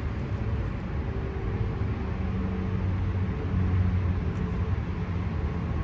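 Steady low outdoor rumble, with a faint droning hum that grows stronger around the middle and then fades.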